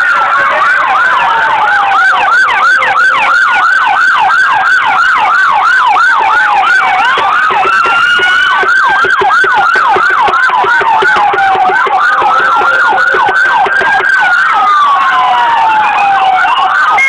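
Electronic sirens sounding loudly together: one in a fast yelp, sweeping up and down about two and a half times a second, over another in a slow wail that rises and falls every few seconds. The yelp drops out about halfway through and the wail carries on.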